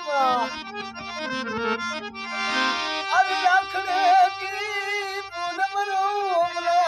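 Harmonium playing a Rajasthani folk tune, its reeds sounding steady held notes. About three seconds in, a man's singing voice with a wavering vibrato joins over it.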